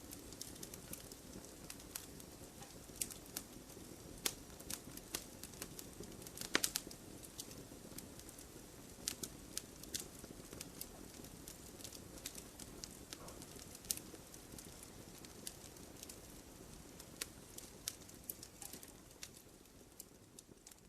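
Wood fire burning: a low steady rush of flame with irregular sharp crackles and pops, a louder cluster of pops about six and a half seconds in, and the sound dropping away near the end.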